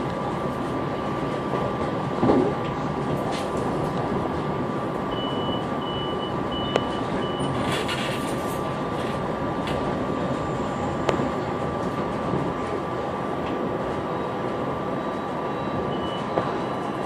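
Interior sound of a SEPTA Silverliner V electric multiple-unit railcar: a steady rumble with a constant high tone and a few sharp knocks. A string of four short high beeps sounds about five to seven and a half seconds in.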